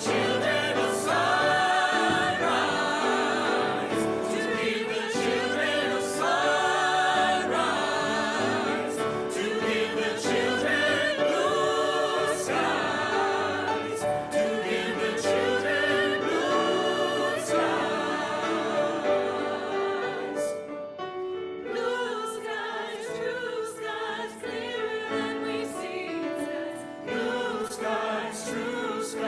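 A choir singing with vibrato, growing quieter about two-thirds of the way through.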